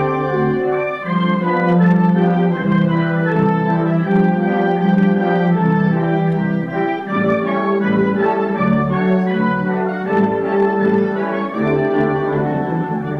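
Military wind band of brass and woodwinds playing held, sustained chords that change every second or so.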